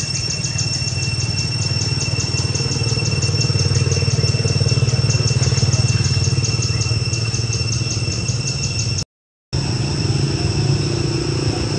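A motor running steadily, with a high, evenly pulsing buzz over it. The sound drops out for about half a second near the end.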